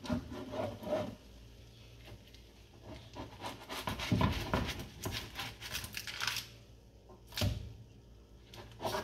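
A spatula scraping under baked zucchini patties on baking paper in a metal baking tray, lifting and turning them in a run of irregular strokes, with one sharp knock about seven and a half seconds in.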